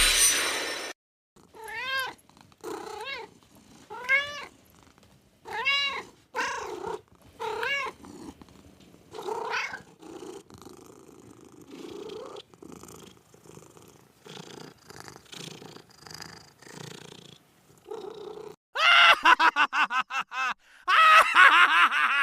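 Domestic cat meowing several times, each call rising and falling in pitch. This is followed by quieter purring and, near the end, a fast run of short repeated cries.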